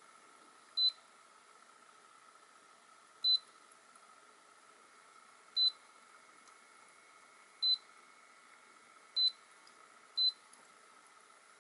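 Coolean Cube mini ultrasonic humidifier's touch control panel beeping as its buttons are pressed: six short, high beeps, one per press, confirming each setting change such as mist level and timer. They come one to two and a half seconds apart, the last two about a second apart, over a faint steady hum.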